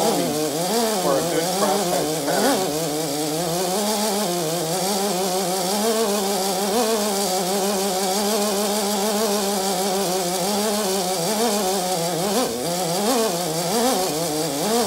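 Electric drill spinning a spring-loaded stone cylinder hone inside the oiled cylinder bore of a Lincoln WeldanPower 150's engine. The motor's pitch wavers up and down as the hone is worked in and out against the wall. It is honing out wear marks to leave a crosshatch pattern.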